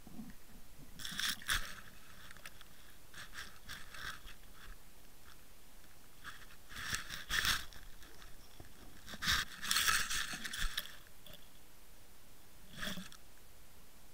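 Handling noise from a fishing camera's waterproof housing scraping and brushing against grass and a mat in about five short bursts, the longest near the two-thirds mark.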